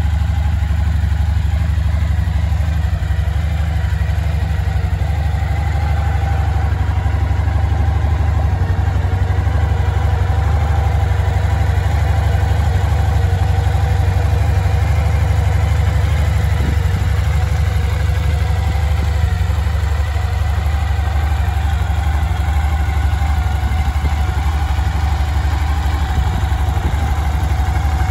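Suzuki DL1000 V-Strom's 90-degree V-twin engine idling steadily, a constant low-pitched running sound.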